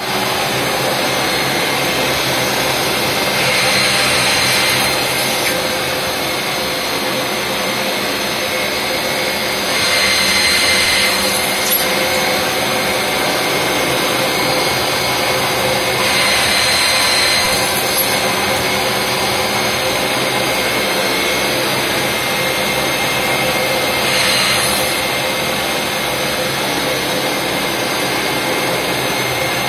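Milling machine spindle drilling steel with an 8.5 mm Guhring solid-carbide drill at 4000 rpm and 0.2 mm per rev feed, under flood coolant. There is a steady rush of spindle and coolant, and five times, about every six or seven seconds, a louder, higher cutting sound lasts a second or two as each hole is drilled.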